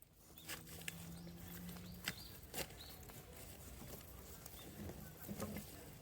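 Faint outdoor ambience with a few scattered soft clicks and taps, and a faint low hum through the first two seconds.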